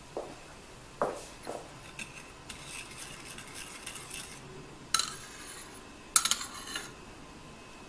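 Metal spoon stirring chia seeds in coconut milk in a ceramic bowl, with light scrapes and a soft swishing, then two sharp clinks of the spoon against the bowl about five and six seconds in.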